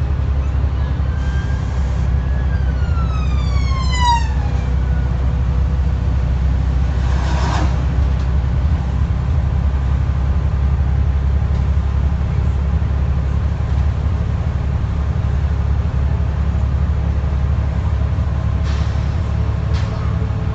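Scania N94UD double-decker bus heard from inside the saloon, its engine and drivetrain droning steadily while under way. Near the start a high whine holds its pitch for about a second, then falls smoothly over the next two seconds; a brief rush of noise comes about seven seconds in.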